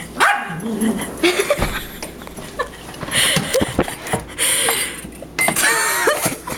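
Dogs moving about with collar tags jangling in irregular bursts, mixed with a few short whines, one longer wavering whine near the end.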